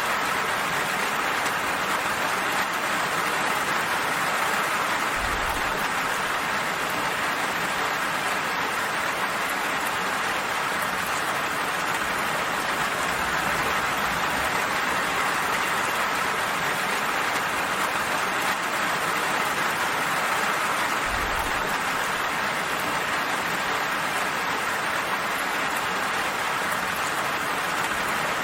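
Steady rain falling, an even hiss of drops on surfaces with no let-up. Two brief low rumbles come in, one early and one about three-quarters of the way through.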